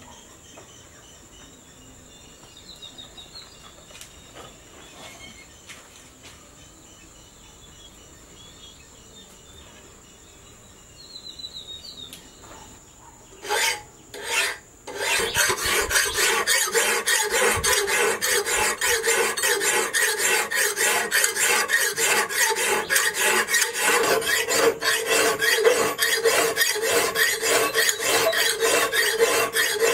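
Hand file scraping back and forth over a spring-steel knife blade clamped in a bench vise, in rapid, even strokes that start about halfway through. Before that, an insect drones steadily at a high pitch while birds chirp now and then.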